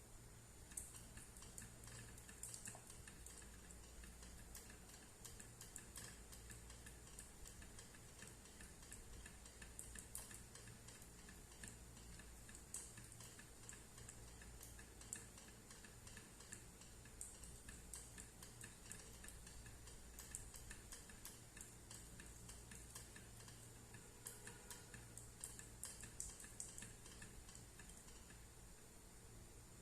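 Near silence with faint, irregular light clicks and ticks over a low steady hum.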